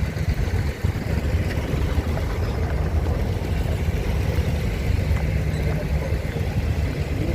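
Abra water taxi's diesel engine running steadily: a constant low rumble with wash and wind noise over it.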